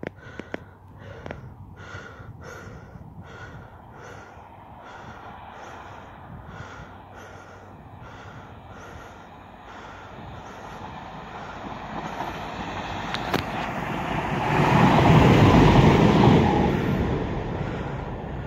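Diesel passenger train approaching along the line and passing underneath, its engine and wheel noise growing louder to a peak about fifteen seconds in, then dropping away. Before it arrives, a faint regular ticking about one and a half times a second.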